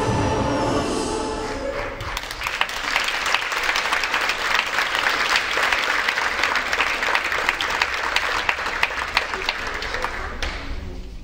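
The last notes of the stage music, then an audience applauding from about two seconds in, the clapping thinning a little near the end.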